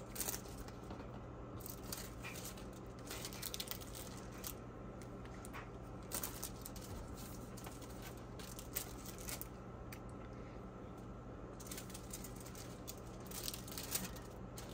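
Faint scattered taps and rustles of American cheese slices being handled and laid onto chicken in a glass baking dish, over a steady low hum.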